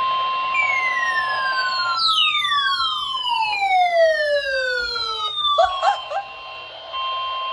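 Emergency alert tones from a weather radio or Emergency Alert System receiver. A steady high alert tone gives way to a series of overlapping siren-like tones sweeping downward in pitch, and the steady tone comes back near the end. It signals that a severe thunderstorm warning is about to be read.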